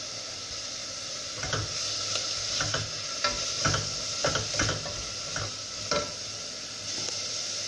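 Onion, garlic and carrots sautéing in oil in a stainless steel pot, a steady sizzle, with a spoon knocking and scraping against the pot about ten times as they are stirred.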